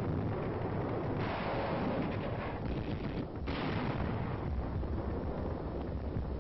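Battle noise of gunfire and artillery explosions, a dense, continuous din with a heavy low rumble, brightening about a second in and again midway.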